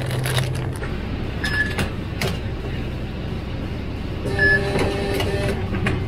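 Small-shop checkout sounds: handling of plastic-wrapped bread and short clicks and knocks over a steady low hum, with two brief high electronic beeps from the till, about a second and a half in and again past four seconds.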